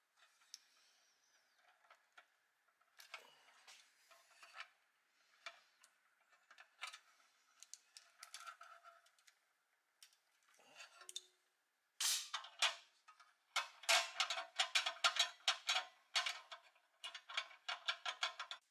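Needle-nose pliers working a bent steel wire rod into the holes of a pressed-steel Tonka truck chassis: scattered light metal clicks and scrapes, then a quick run of many clicks and taps over the last six seconds or so.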